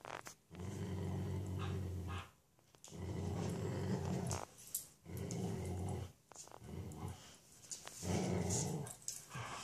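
Dogs play-growling in a tug-of-war over a rope toy: a run of long, low growls, each lasting a second or two, with short breaks between them.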